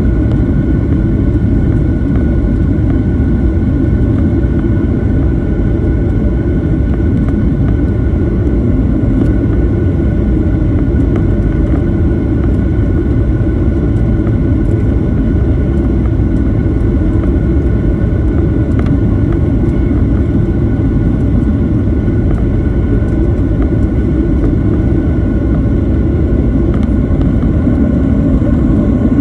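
Airliner cabin noise during landing: a steady, loud rumble of the engines and rushing air, with a few steady whining engine tones above it.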